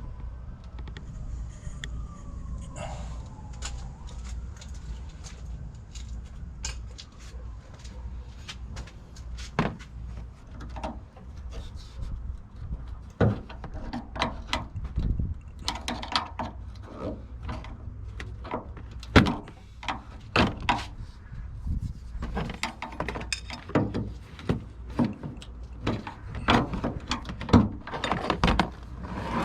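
A distant siren rising and falling for the first few seconds, then a long run of sharp clicks and knocks from handling the car's hood strut and its fittings, coming more often and louder in the second half, over a steady low rumble.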